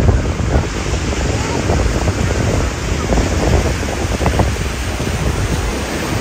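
Wind noise on the microphone over a steady wash of surf.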